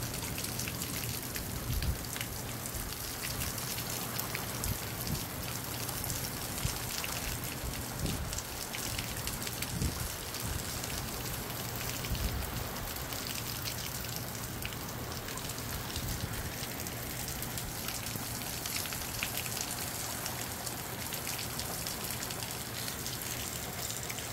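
Moderate rain falling steadily, a dense patter of drops, with gusts of strong wind surging low now and then.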